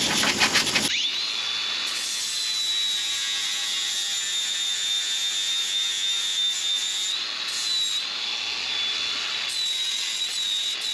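Welding crackle for about the first second, then an angle grinder running steadily with a high whine as it grinds down a weld seam on a steel cab panel. The pitch wavers slightly a couple of times as the disc is pressed into the metal.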